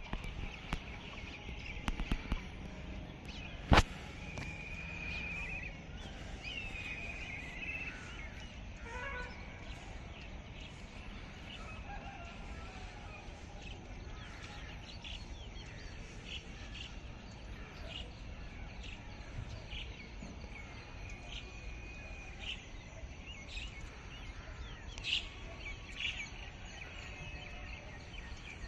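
Birds chirping and calling in the open: many short chirps and a few longer whistled calls over a steady background hiss. A single sharp click about four seconds in is the loudest sound.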